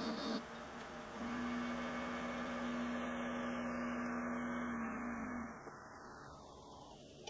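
Wood lathe spinning a rolling pin while a burning wire is held against it, giving a steady pitched hum. About five seconds in the hum drops in pitch and fades.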